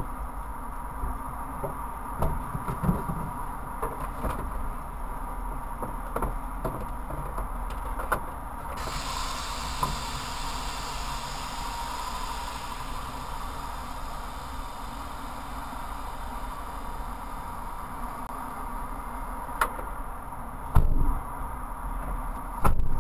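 Steady low rumble inside the cabin of a stationary car, with scattered light clicks and knocks. A steady hiss starts suddenly about nine seconds in, and two louder thumps come near the end.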